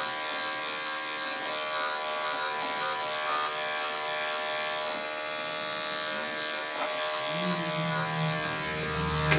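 Corded electric dog grooming clippers running steadily while clipping a thick-coated dog's chest. A lower hum comes in about seven and a half seconds in.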